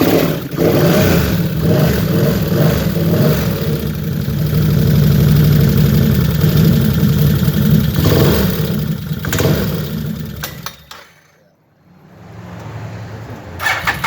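Can-Am Outlander 800 ATV's V-twin engine running steadily for about ten seconds, then dying away and cutting out; near the end the starter cranks it again.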